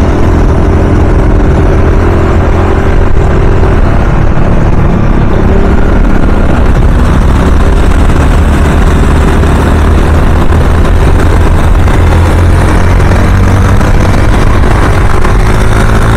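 A scooter riding along the road: steady engine and road noise under a loud, low rumble of wind on the helmet-mounted microphone.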